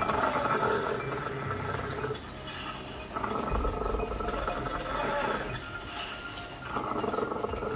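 Shiba Inu growling and snarling, low and guttural, in three long bouts. It is an aggressive warning from a dog that will not submit and is threatening to attack.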